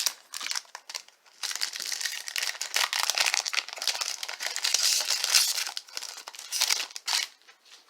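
A baseball card pack's wrapper being crinkled and torn open by hand: a few short crackles, then several seconds of continuous loud crinkling that stops shortly before the end.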